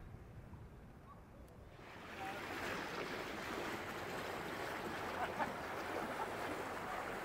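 Steady rushing riverside noise of water and wind that sets in abruptly about two seconds in and then holds steady.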